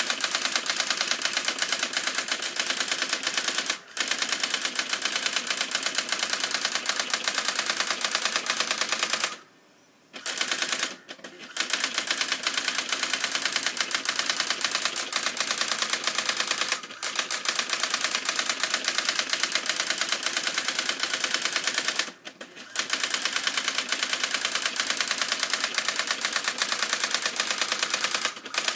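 Brother daisywheel printer printing: a fast, even rattle of print-hammer strikes on the typewheel. It breaks off in a few short pauses and one longer near-silent gap about a third of the way in.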